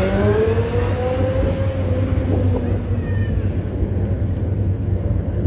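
Wind buffeting the microphone while riding a bicycle, heard as a steady low rumble. Near the start a drawn-out, slightly wavering tone sounds for about two seconds.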